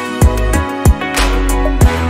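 Background music with a steady beat: deep kick-drum thumps over held bass and instrument notes.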